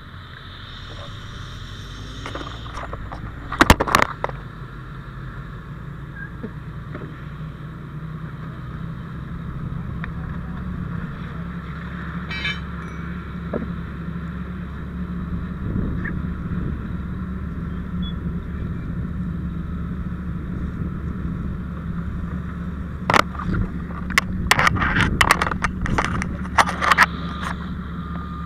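Fire engine's motor running steadily, pumping water to the hoseline. Sharp knocks and scrapes of handled gear come about four seconds in and again in a quick cluster near the end.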